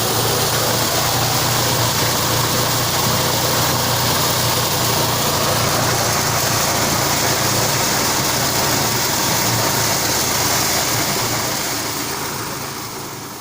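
Engine-driven corn-processing machine running steadily: a constant engine hum under a loud, even rush of machine noise, fading away near the end.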